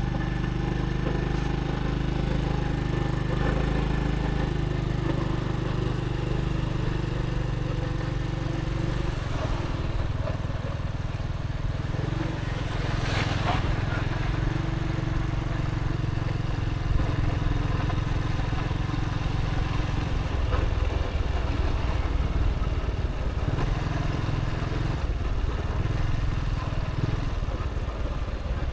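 Motorbike ride heard from the bike: the engine runs steadily under constant road noise and a heavy low rumble, with a brief louder swish about halfway through.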